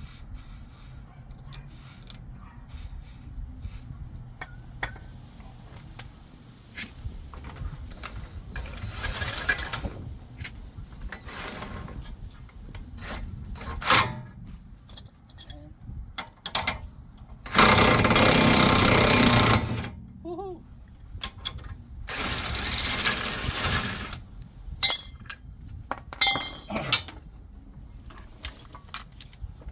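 Impact wrench running in two bursts of about two seconds each, the first and louder one a little past halfway, driving the screw of a bearing press tool to push the old front wheel bearing out of the hub. Metal tool clinks and knocks come in between.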